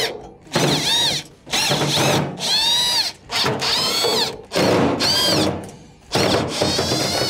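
Cordless drill/driver backing Phillips screws out of a dryer's front panel in about half a dozen short runs. Its motor whine rises and falls in pitch with each run.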